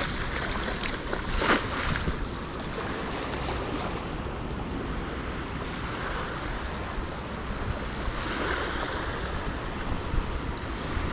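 Small surf washing on the beach with wind on the microphone. About a second and a half in, a short splash as a thrown cast net lands on the water.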